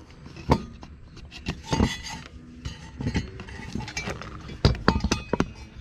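Scattered clicks and light knocks from a recoil starter housing and its new pull cord being handled while the cord is knotted tight and pulled through, with a cluster of louder clicks near the end.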